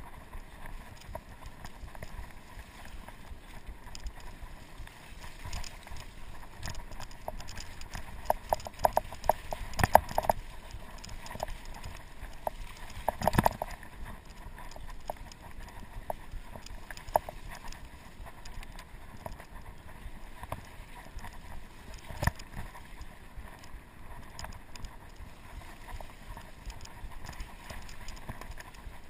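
Norco Sasquatch fat bike ridden over a leafy, muddy woodland trail: a steady rolling noise, with the bike rattling and clicking over bumps in clusters about eight to ten seconds in and again around thirteen seconds, and one sharp knock a little after twenty-two seconds.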